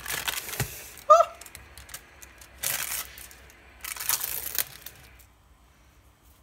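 Clear plastic film being peeled and torn off a ready-meal tray in three separate rips, with one short, sharp clink about a second in.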